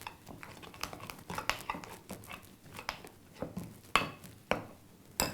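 Idli batter being mixed with turmeric and gram flour in a vessel: irregular soft scrapes and clinks of the utensil against the vessel, with a few sharper clicks about four seconds in and near the end.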